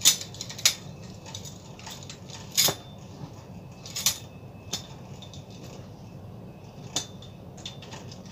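Hard clicks and knocks of a small ring light being fitted onto its stand, a few sharp clacks spaced a second or more apart, the loudest at the start and about two and a half seconds in, over a low steady hum.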